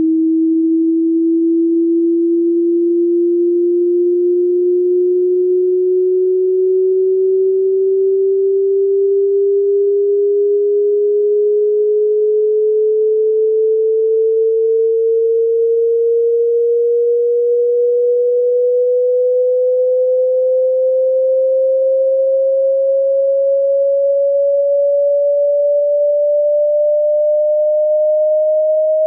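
Pure sine test tone of a hearing test sweeping slowly and evenly upward in pitch, climbing about an octave from a low to a middle tone at a constant loudness.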